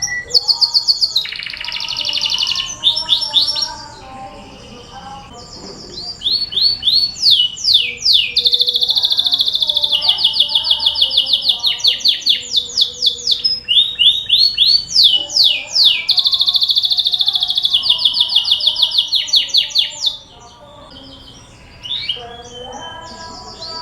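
Domestic canary singing a long song of rapid trills and fast runs of repeated falling whistled notes, a lure song of the kind played to set other canaries singing. The song stops about 20 seconds in, leaving only faint sounds.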